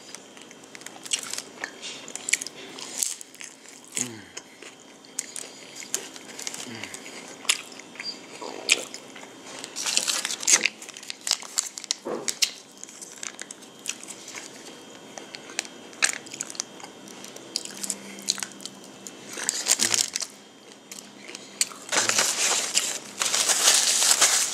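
A person biting into and chewing crunchy hard-shell tacos, with a crisp crunch at many separate bites. A paper wrapper crinkles near the end.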